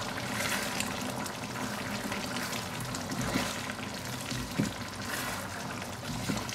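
Chicken gizzards and soup greens sizzling in their sauce in a wok over high heat, while a spatula stirs them and scrapes across the pan.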